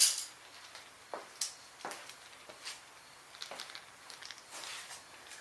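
Metal tools clinking and clattering while a hex key is fetched: a louder clatter at the start, then a dozen or so irregular light clicks and knocks.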